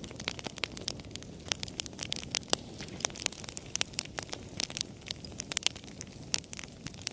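Wood fire burning in a fireplace: irregular sharp crackles and pops, several a second, over a low steady rush of the flames.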